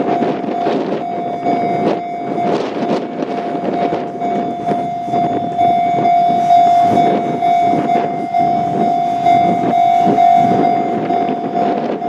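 Japanese railway level-crossing warning bell ringing without a break, a steady electronic clang that signals an approaching train. A rough, rushing noise runs underneath it.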